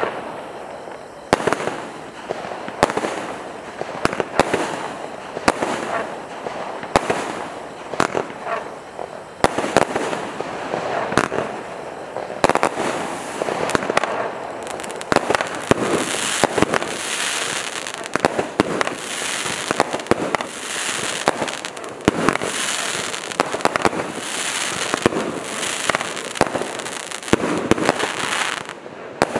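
Kimbolton 'Knees Up' 63-shot firework cake firing shot after shot, a rapid string of sharp reports. In the second half, hissing, crackling bursts come about every second and a half, and the barrage stops just before the end.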